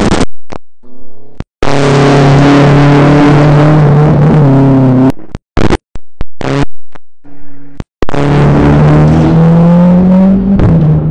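Pro Street drag bike's Suzuki engine at high revs, heard in several short clips that start and stop abruptly. It holds steady high revs for a few seconds, then runs with its pitch climbing as the bike pulls away, dipping once near the end.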